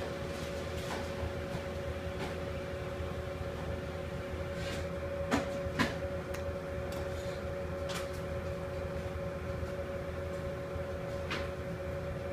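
Steady hum of kitchen equipment with two held tones, broken by a few light knocks and clicks of plates or utensils, the clearest two about halfway through.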